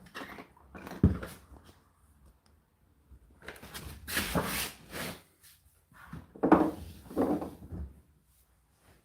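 Knocks and thuds of something being handled: a sharp knock about a second in, a longer scraping or rustling noise around the middle, then a few heavier thumps near the end.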